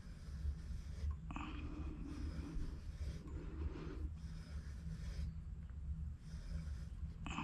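Rotary tube cutter being turned around a 3/4-inch copper pipe, its cutting wheel scoring the pipe with soft scraping in several stretches of a second or more, over a steady low hum.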